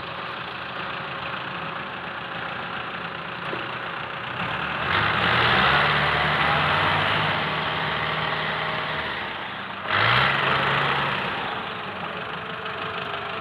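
Massey Ferguson 385 tractor's diesel engine running, then revving up hard about five seconds in and holding for several seconds, with a second shorter rev-up near ten seconds, as the tractor strains against deep mud.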